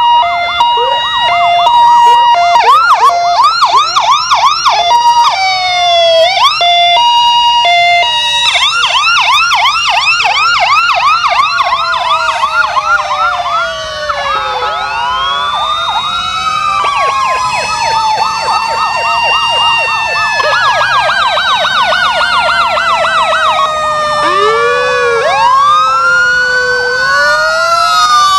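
Several fire truck sirens sounding at once as the trucks pass. Fast repeated yelping sweeps, a two-tone hi-lo alternation and slow rising-and-falling wails overlap. In the second half long slow falling wails dominate.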